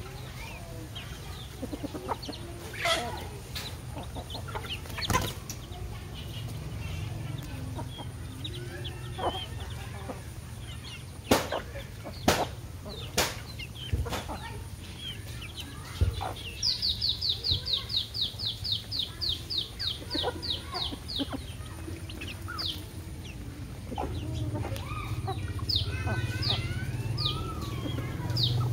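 Domestic chickens clucking softly while feeding, with scattered sharp taps. About halfway through comes a run of about fifteen short high chirps, some three a second.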